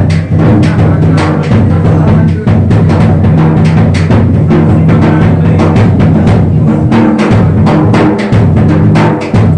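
Loud devotional music driven by fast, steady drumming, with a steady low tone beneath the beats.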